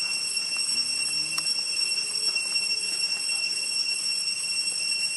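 Steady, high-pitched insect drone typical of cicadas. A couple of faint, short low calls rise and fall in pitch about a second in and again about two seconds in.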